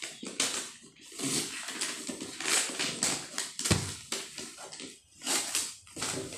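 Wrapping paper on a gift box rustling and crinkling in irregular bursts as hands rub and press over it, with a single dull thump about halfway through.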